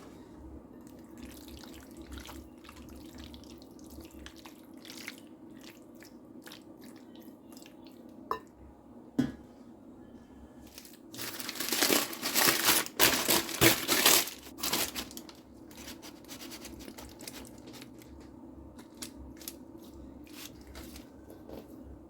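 Kitchen food-preparation handling sounds: scattered small clicks and two sharp knocks, then a loud stretch of rapid, noisy scraping lasting about four seconds midway, over a steady low hum.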